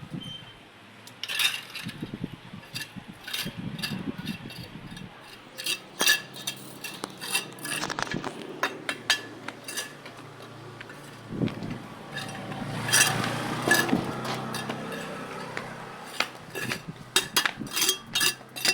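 Irregular clinks, taps and scrapes of small hard objects against a container, as in pretend-mixing 'cement'. The taps come thicker in the last few seconds.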